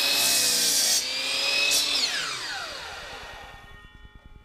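Ridgid sliding compound miter saw cutting through a wooden board for about the first second, its motor whining at speed. About two seconds in, the motor is switched off and the blade winds down with a falling whine that fades away.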